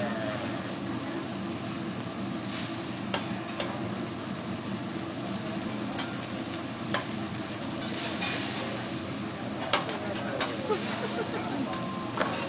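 Noodles sizzling on a hibachi flat-top griddle while metal spatulas scrape and turn them, with sharp clicks from the spatulas striking the steel every second or two and a few louder ones near the end.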